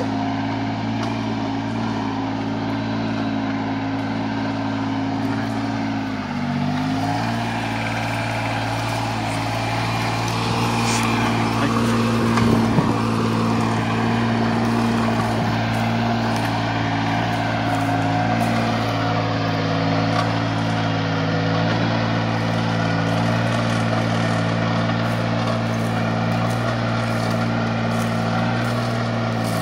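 VST 818 compact tractor engine running steadily under load while pulling a three-disc plough through orchard soil. The engine note dips briefly about six seconds in.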